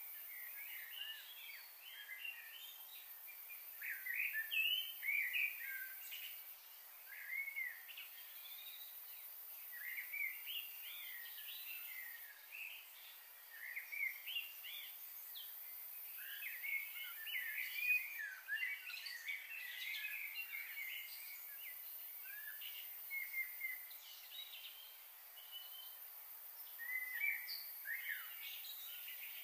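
Many small birds chirping, with short, overlapping chirps that come and go throughout, over a steady high hiss.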